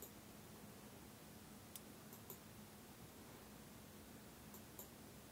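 Faint computer mouse clicks, a few single and paired clicks, as points are clicked on an on-screen map measuring tool, over near silence with a faint steady hum.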